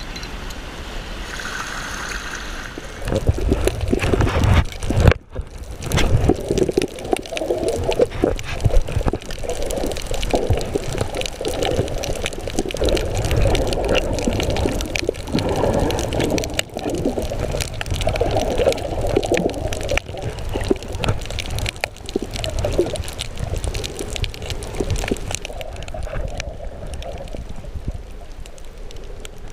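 Water splashing and rushing from the kayak for the first few seconds. Then muffled, irregular gurgling and sloshing of water recorded through an underwater camera housing while snorkelling.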